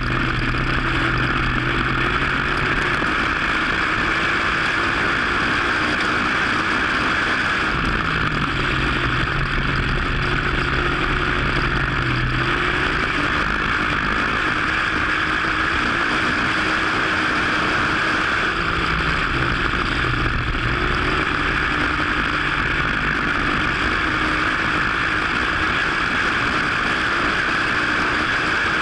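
WISSOTA Modified dirt-track race car's V8 engine running hard on the track, heard from a camera on the car over a steady rush of wind and engine noise. The engine note steps up and down every few seconds as the driver gets on and off the throttle around the track.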